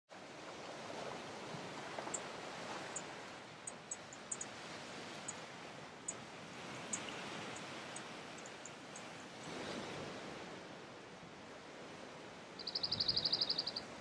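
Male cirl bunting singing one quick, dry trill of about a dozen identical notes on one pitch, just over a second long, near the end. Before it, scattered very short high ticks sound over a steady rushing background noise.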